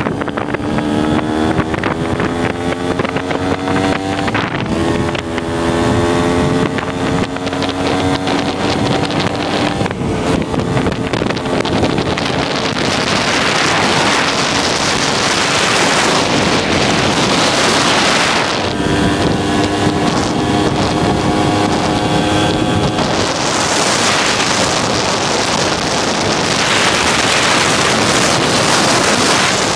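Small motorcycle engine pulling under throttle, its pitch climbing and dropping back at gear changes about four and ten seconds in. Heavy wind buffeting on the microphone drowns the engine for long stretches in the second half.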